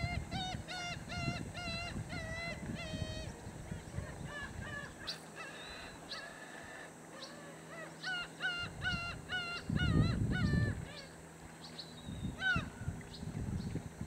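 Black-tailed gulls calling in two runs of repeated notes, about two a second, one at the start and another about eight seconds in, with a single falling call near the end. Low splashing of bathing gulls underneath, loudest about ten seconds in.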